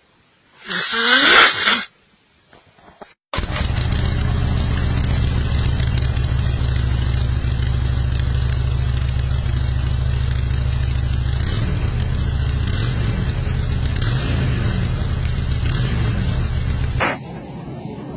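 A short vocal sound, then an engine that starts abruptly a few seconds in and runs at a steady speed until it drops away near the end.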